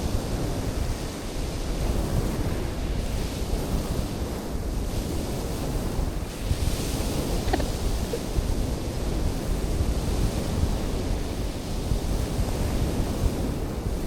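Sea surf washing steadily, with wind buffeting the microphone in a low rumble.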